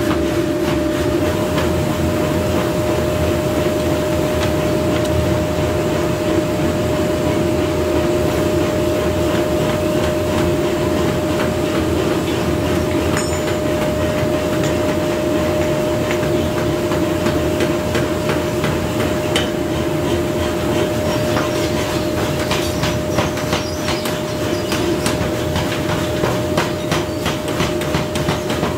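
Steady hum of forge-workshop machinery over the wash of water pouring from taps into a quenching trough. In the last several seconds a rapid patter of clicks and taps joins it.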